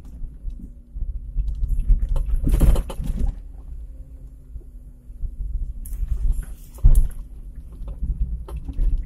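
Perodua Kembara 4x4 crawling over a rough, wet dirt track, heard inside the cabin: a low engine and road rumble, with the body knocking and rattling over bumps. The biggest jolts come about two and a half seconds in and again near seven seconds.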